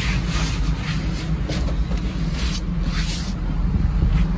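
Tractor engine idling with a low, steady rumble. Several brief brushing and rubbing noises come from a hand sliding over the cab's plastic fender cover and console.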